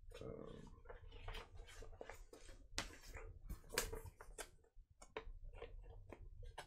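A paper vinyl-record sleeve rustling and scraping as it is handled and the record is drawn out of it, with a run of irregular crinkles and small taps.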